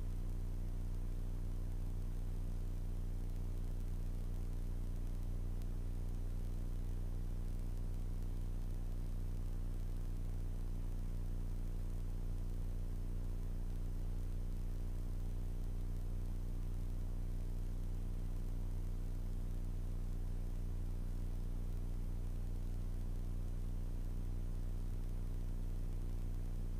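Steady low drone of a Grumman Tiger's four-cylinder piston engine and two-bladed propeller in flight, with faint hiss above it.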